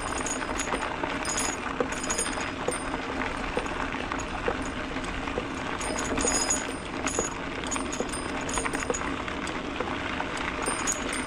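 Mountain bike rolling over a gravel road: tyres crunching on loose stones and the bike rattling steadily, with light metallic ringing in short spells as the handlebar bell jingles over the bumps.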